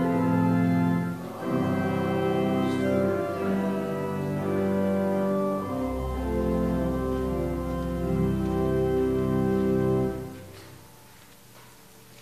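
Organ playing slow, held chords over low bass notes. The music ends about ten seconds in and dies away in the room's echo.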